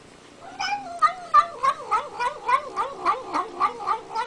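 A cat yowling in one long, warbling call that starts about half a second in, its pitch wobbling up and down in regular pulses, about three a second.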